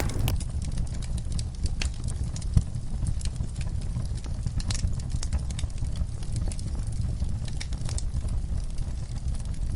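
Wood fire in a fireplace crackling: scattered sharp pops and snaps over a steady low rumble of the flames.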